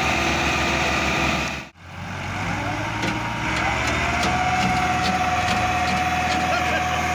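Massey Ferguson 385 tractor's diesel engine running hard under heavy load, pulling a trolley piled with sugarcane. The sound breaks off briefly just under two seconds in, then the engine picks up again, with a steady high whine joining a little later.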